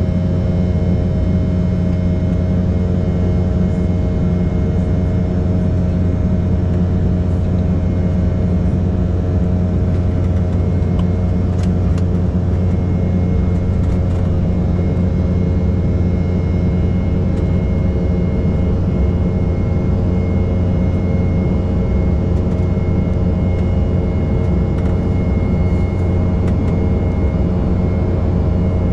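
Steady jet cabin noise of an Embraer E195 in flight: a loud, even rush of air and the deep drone of its turbofan engines, with a low hum and a faint high whine held throughout.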